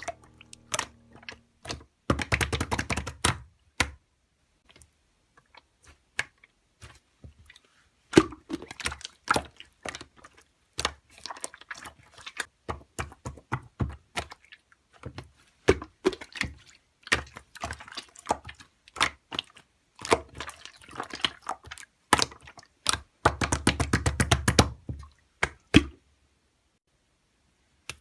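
Slime being squeezed and worked by hand, giving trains of quick sticky clicks and crackling pops. Two longer bouts of dense squishing come about two seconds in and again about 23 seconds in.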